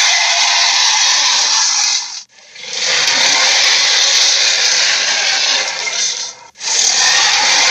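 Giant-ape roar sound effect: long, harsh, rasping blasts of a few seconds each, broken by short pauses about two seconds in and again about six and a half seconds in.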